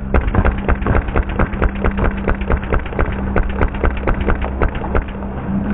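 Airsoft gun firing a long full-auto string, a fast even run of clicks over the steady hum of its motor, heard dull and muffled.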